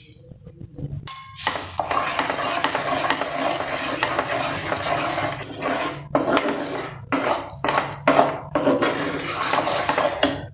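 Wooden spatula stirring and scraping through boiling jaggery syrup in a nonstick frying pan as a spoonful of ghee melts in, the thick syrup bubbling and sizzling. A sharp clack comes about a second in, and the stirring noise breaks off briefly several times near the end.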